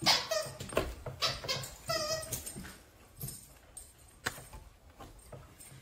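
A dog whining in short, high-pitched cries over the first two seconds or so. Then it goes quieter, with a few faint clicks and one sharp click.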